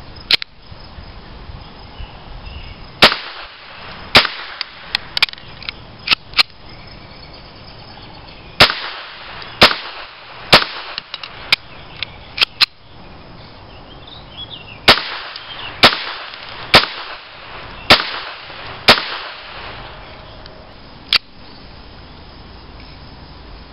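Walther P22 .22 LR semi-automatic pistol firing about twenty shots, irregularly spaced, including a run of five roughly a second apart in the second half, with a few fainter shots mixed in.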